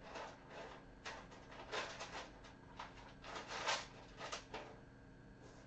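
A kitten moving about and playing, making a string of short, irregular scratchy rustles and scrapes, the loudest near the middle.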